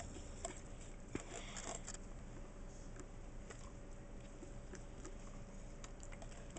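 Faint scattered clicks with a short scrape about a second in, from a metal spoon working dog food out of a can.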